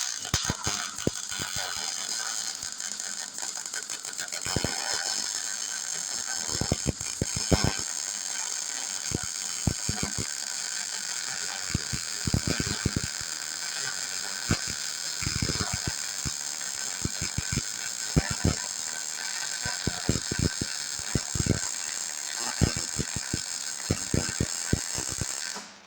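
Small Hobart MIG welder's arc running at full power, a steady crackling sizzle with irregular pops, as a 3/4-inch steel plate is welded to a backhoe bucket. The arc cuts off abruptly near the end.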